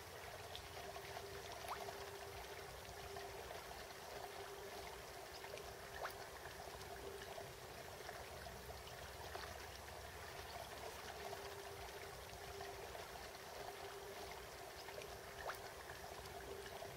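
Faint, steady trickle of running water, with a faint hum that comes and goes and a few light clicks.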